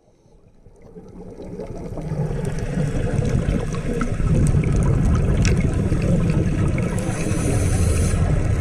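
Underwater ambience picked up through a camera housing on a scuba dive: a steady low rumble with scattered sharp clicks, fading in over the first two seconds, and a brief higher hiss about seven seconds in.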